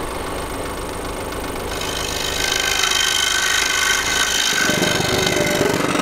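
DeWalt scroll saw running with its blade cutting through a wooden cutting-board blank, trimming the edge. The cutting grows louder and busier about two seconds in, and a fast, heavy low rattle joins about four and a half seconds in.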